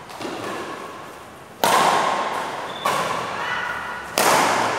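Badminton rackets striking a shuttlecock in a rally, a sharp crack every second or so: a faint hit just after the start, then three loud ones, each ringing on in the hall's echo.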